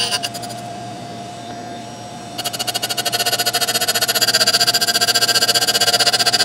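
Tool and cutter grinder running with a steady motor whine while its wheel grinds a lathe cutting tool. The grinding hiss dies away in the first second, then starts again about two and a half seconds in as a fast, even pulsing grind that grows louder.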